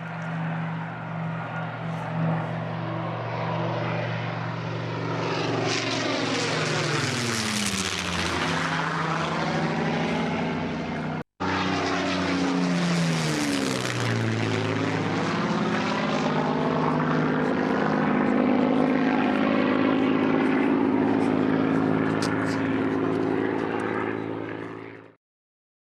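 Second World War Spitfire and Hurricane fighters' V12 piston engines during low flybys. A steady engine drone drops sharply in pitch as an aircraft passes about seven seconds in. After a brief dropout, another pass falls in pitch about thirteen seconds in. The drone then carries on until it cuts off abruptly near the end.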